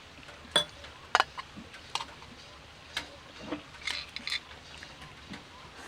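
Eating utensils clinking and tapping against dishes during a meal: a scattering of sharp, irregular clinks, the loudest about half a second and just over a second in, with a quicker cluster around four seconds in.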